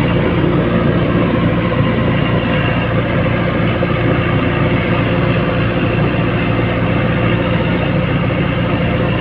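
Bulldozer's diesel engine running at a steady speed, a loud constant drone with no change in pitch.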